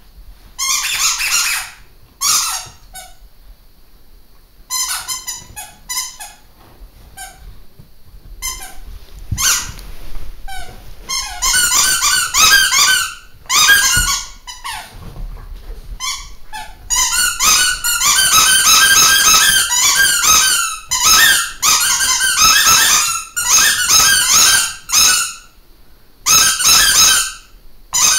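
Two squeaky toys squeaking in quick runs of short, high squeaks as they are squeezed over and over. The squeaks are scattered at first and come almost without a break in the second half. The squeakers are nearly worn out.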